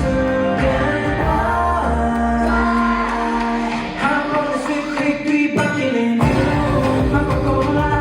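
Pop song with singing, played loud through a concert sound system. The deep bass drops out about two and a half seconds in and comes back with the full beat about six seconds in.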